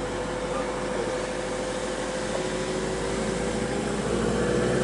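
Car driving along with a steady engine and road drone, including a held hum.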